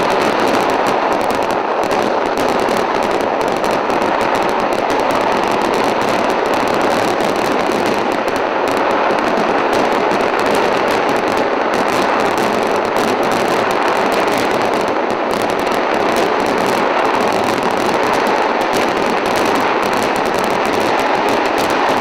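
Kerala temple fireworks (vedikettu) going off in a dense, unbroken barrage of crackling explosions, so rapid that they merge into one continuous din with no pause.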